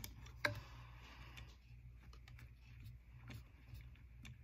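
Small clicks and light metallic ticks of a screwdriver and fingers working the screws of a Stihl 009 chainsaw's carburetor, with one sharper click about half a second in. A low steady hum sits underneath.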